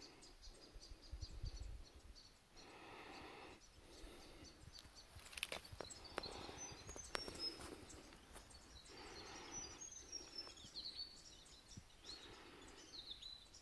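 Very faint woodland ambience: small birds chirping high and thin, with soft rustling now and then.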